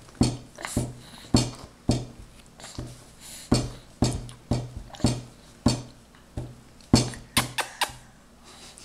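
A baby chewing a green bean with her fingers in her mouth, making short, wet mouth smacks at an irregular pace of about one to two a second, with a quick run of them near the end.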